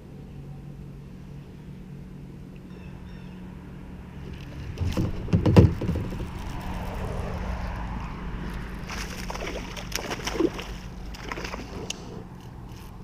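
Water sloshing and splashing around a kayak, with a loud splash or knock about five seconds in and a further run of splashes near ten seconds.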